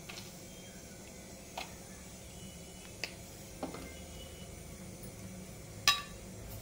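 Kitchen utensils clinking lightly, about five separate clinks, the loudest near the end.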